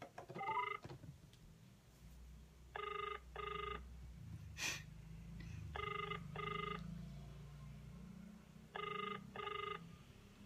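Ringback tone of an outgoing phone call, playing through a smartphone's loudspeaker: three double rings about three seconds apart while the call goes unanswered. A single short click comes between the first and second rings.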